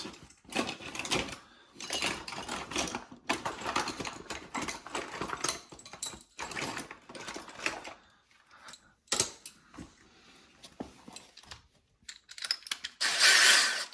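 Irregular clicks, scrapes and rattles of hand tools and metal parts being handled while working on a dryer door, quieter for a few seconds in the middle, with a louder rushing burst of noise near the end.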